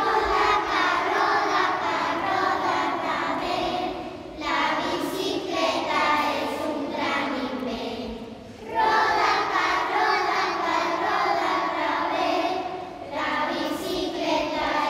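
A children's choir singing, in phrases of about four seconds with short breaks between them.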